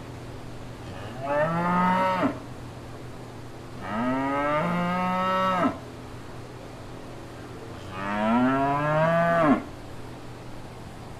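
Cow mooing three times, each call one to two seconds long, rising in pitch and cutting off abruptly.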